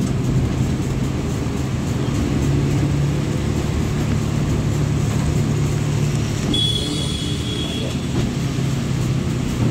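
Steady engine hum and road noise heard from inside a moving bus. About seven seconds in, a brief high-pitched tone sounds for a second or so.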